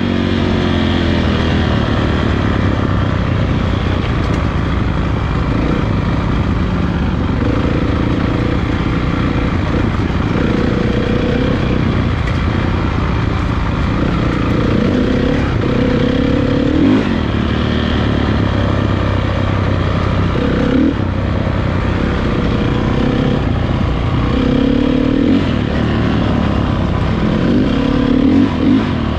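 Motocross dirt bike engines running loud and steady, revving up again and again as the bikes accelerate.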